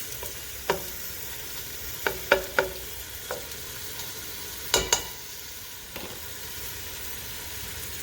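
Food sizzling steadily in a pan while a cooking utensil stirs it, knocking against the pan about eight times in short sharp clicks.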